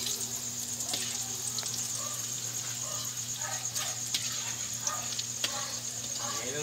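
Battered pork belly pieces deep-frying in hot oil in a wok, a steady sizzle, with a few light clicks of a metal spoon against the wire mesh strainer.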